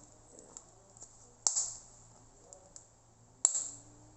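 Homemade tape-covered paper squishy squeezed in the hand: two sharp crackles of crinkling paper and tape, about two seconds apart, with faint ticks between.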